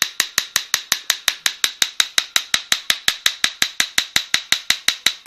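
High-voltage sparks snapping across the output of a car ignition coil pack fired by a strobe light's trigger circuit, about seven sharp snaps a second in an even rhythm, with a steady high whine from the strobe circuit underneath.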